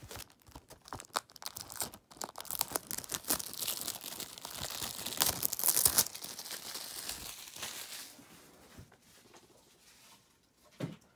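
Clear plastic shrink wrap being torn off a Blu-ray case and crumpled, a dense run of crinkling and crackling that is loudest about halfway through and dies away after about eight seconds. A short thump comes near the end.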